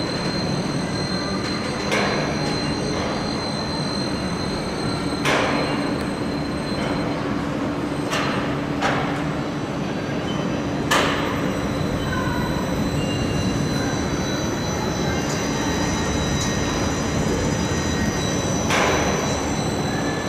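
Overhead crane and its lifting gear working in a locomotive workshop: a steady machinery hum with a high whine, broken by about six sharp metallic clanks.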